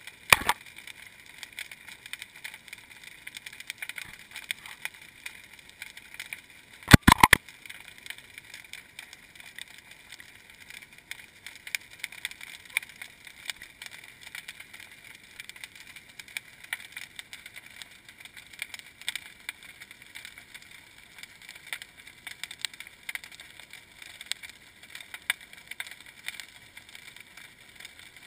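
Underwater ambience through a GoPro's sealed waterproof housing: a steady crackle of fine clicks, with two short bursts of loud knocks, one about half a second in and one about seven seconds in.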